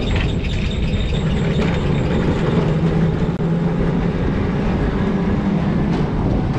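Heritage tram running along its rails, a steady loud rumble with a low hum.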